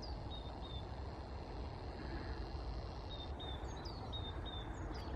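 Small birds chirping: short high calls and brief falling whistles repeating every half second or so, over a steady low outdoor rumble.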